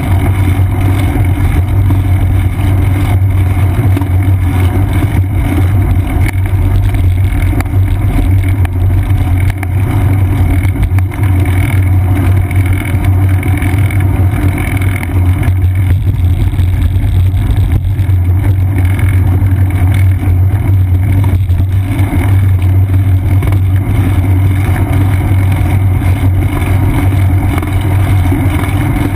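Loud, steady low rumble of wind buffeting and road vibration on a seat-post-mounted GoPro Hero 2 as the bicycle rolls along.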